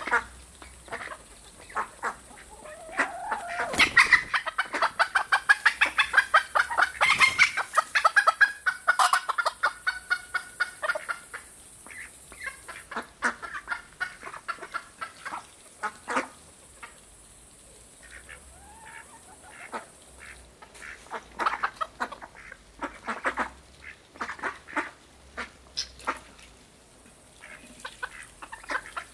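Indian runner ducks feeding on scattered grain. A long run of rapid quacking and chattering from about three to eleven seconds in, then scattered sharp clicks of bills picking at the grain, with a few short calls.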